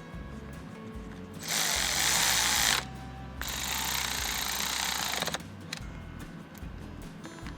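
Two bursts of tool noise, about a second and a half and two seconds long, while a motorcycle starter motor is being reassembled.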